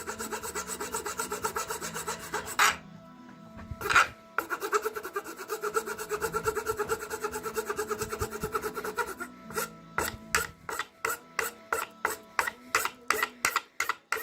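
Hand file rasping on a thin wooden Venetian-blind slat in quick back-and-forth strokes, with a sharp knock about four seconds in. Near the end the strokes slow to separate passes, about two or three a second.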